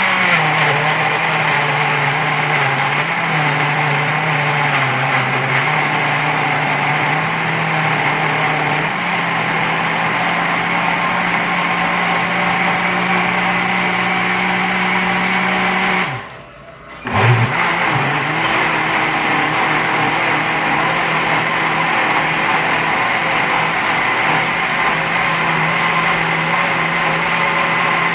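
Countertop blender running steadily, pureeing fresh tomatoes, habanero peppers and onion. It stops for about a second roughly two-thirds of the way through, then starts again.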